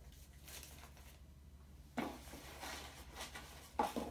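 Paper slips rustling and a hand reaching into a cardboard box, with two short knocks, one about two seconds in and one near the end.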